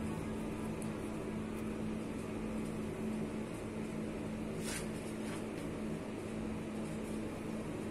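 Steady mechanical hum with a low held tone and an even hiss, like a fan or air conditioner running. Two brief soft swishes come about two-thirds of the way through.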